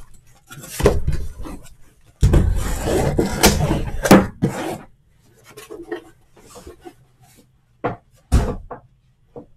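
Shrink-wrapped hobby boxes being slid out of a cardboard case and set down in stacks: cardboard and plastic wrap scraping and rustling, loudest in a long stretch early on, then a few short thuds as boxes are put down near the end.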